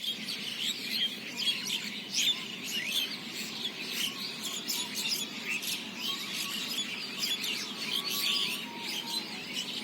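Many small birds chirping at once, a dense chorus of short, high calls overlapping one another.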